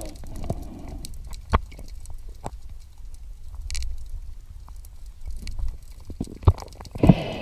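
Underwater recording: a low rumble of water on the camera, with scattered clicks and knocks as the diver handles a speared octopus, and a sharp knock followed by a brief rushing burst near the end.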